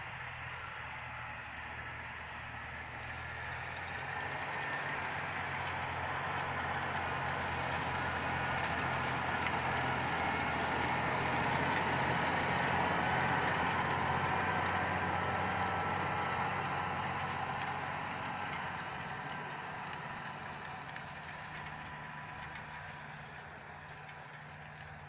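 Large John Deere tractor's engine running steadily under load, pulling a disc harrow through a stubble field, with a rushing noise from the harrow working the soil. It grows louder as the tractor passes, peaks about halfway, then fades as it moves away.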